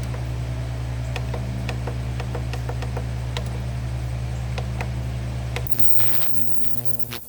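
Steady machine hum with light irregular ticking, cutting off abruptly about five and a half seconds in.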